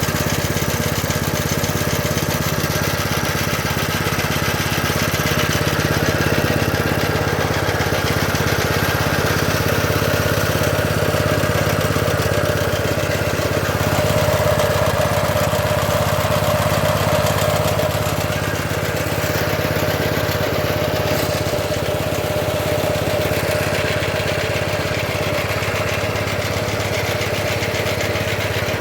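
Motor of a homemade scrap-built stone crusher running steadily, with a higher steady whine added for a few seconds near the middle.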